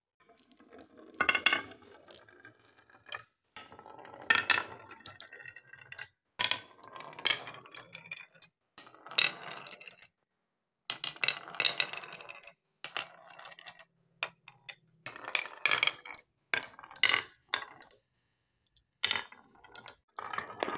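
Glass marbles rolling down wavy grooves carved in wooden boards, clicking and clinking against each other over a low rolling rumble. The sound comes in short runs, broken by brief gaps of silence.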